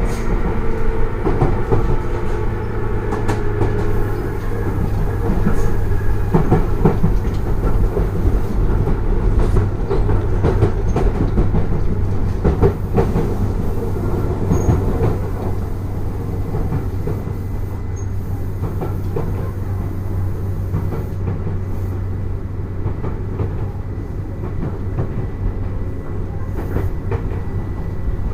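Tobu 10030 series field-chopper-controlled electric train running: a steady low motor hum and wheel rumble with scattered rail-joint clacks. Several steady whining tones fade out over the first few seconds, and a thin steady high tone runs through the second half.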